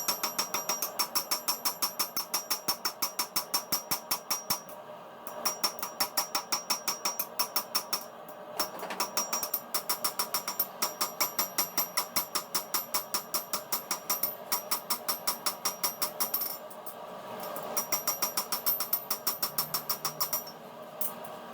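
Rapid, evenly paced hammer blows on metal while forging a knife blade, about five a second, each with a bright metallic ring. They come in runs broken by brief pauses about five, eight, sixteen and twenty seconds in.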